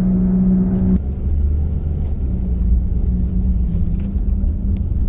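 Car interior noise while driving: a steady low rumble of engine and tyres, with a steady droning hum that cuts off suddenly about a second in, after which a deeper rumble carries on.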